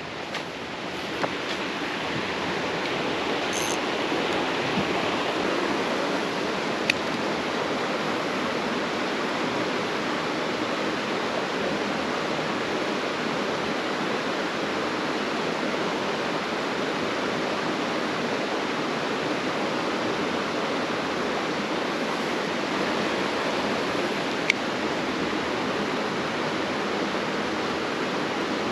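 Creek water rushing steadily, a constant wash of moving water that grows louder over the first couple of seconds and then holds even, with a few faint clicks.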